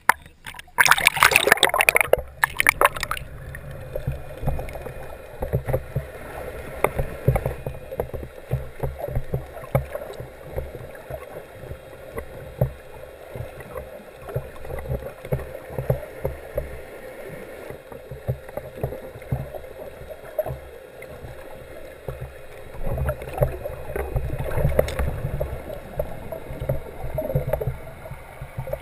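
Water slapping and splashing over a camera at the surface for about three seconds, then the camera goes under and the sound turns to a muffled, crackly underwater rumble inside its waterproof housing.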